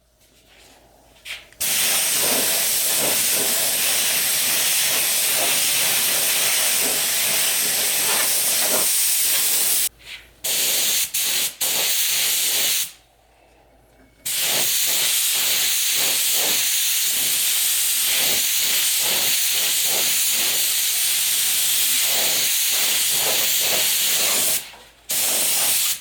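SATA detail spray gun spraying Cerakote ceramic coating with compressed air: a steady hiss in two long passes of several seconds each, with a few short bursts and brief pauses between them.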